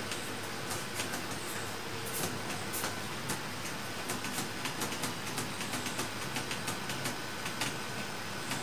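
Steady background room noise with a faint steady whine, broken by small, irregular clicks.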